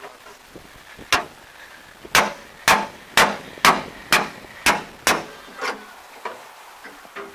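Sharp knocks on the metal cab of an MTZ-80 tractor: one knock, then a run of about eight, roughly two a second, the last few fainter.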